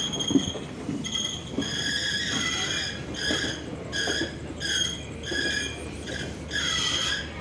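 Passenger train rolling slowly into a station: a low rumble of wheels on the track, with a high-pitched squeal from the running gear that comes and goes in short repeated pulses, as it does when a train brakes on arrival.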